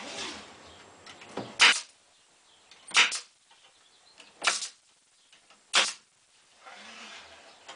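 Four short, sharp bangs at an even pace of about one every second and a half, from fastening work on the trailer's wooden wall framing.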